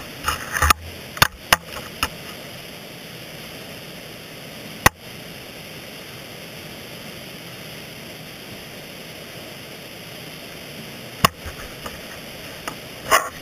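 Sharp knocks and scrapes of a dry-tooling ice axe's steel pick hooking and shifting on rock, heard close up from the tool itself: several in the first two seconds, a single sharp one near five seconds, then more about eleven and thirteen seconds in. A steady hiss runs underneath.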